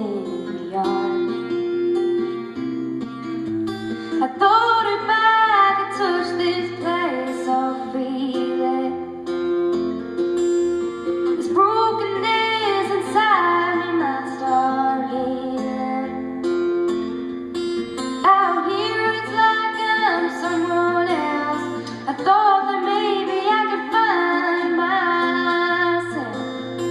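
A woman singing a slow country-style song to guitar accompaniment, in several sung phrases over steady plucked chords.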